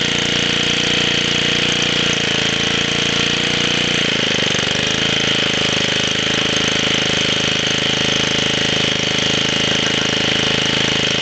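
Small 2.5 horsepower gasoline engine driving an alternator as a generator, running steadily. About four seconds in its speed dips briefly and then settles again.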